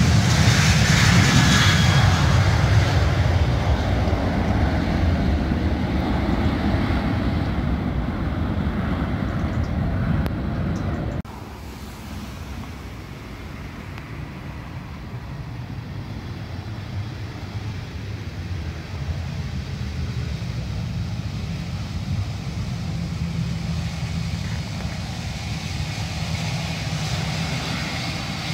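Jet airliner engines on the runway. A Boeing 737 runs loud at high power and slowly fades, then after an abrupt cut about eleven seconds in, an arriving Airbus A321's engines give a quieter rumble that builds gently toward the end.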